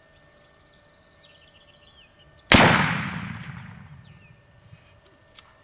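A single .30-06 rifle shot: one sharp, loud crack about two and a half seconds in, trailing off in a long rolling echo that takes about two seconds to die away. Faint chirping of insects or birds can be heard before it.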